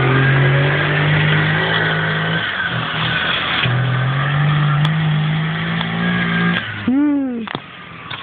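Romet Zetka 50 motorcycle's 50 cc engine revving as it pulls away towing a sled, its pitch climbing, falling back once about three and a half seconds in, then climbing again. Near the end a brief whoop rises and falls in pitch, and the engine then grows fainter.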